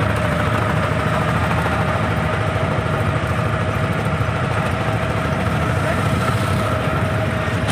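Gramin Sewa shared-ride vehicle's engine running with a steady clatter, heard from inside the passenger cabin while the vehicle moves along the road.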